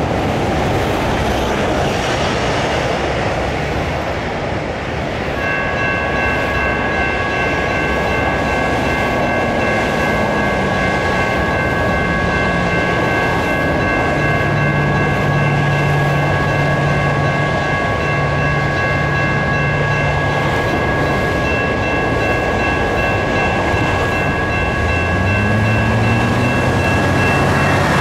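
Railroad crossing's General Signals Type 2 electronic bell starting about five seconds in and ringing steadily as the crossing activates for an approaching train, over a steady noise of road traffic.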